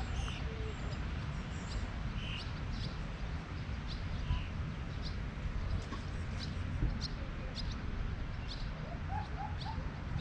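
Small birds chirping: short high chirps every half second or so, over a steady low rumble.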